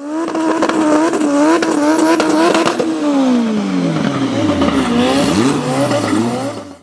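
Race car engine held at high revs during a burnout, the pitch wobbling about twice a second, then the revs falling away after about three seconds, followed by a couple of short throttle blips.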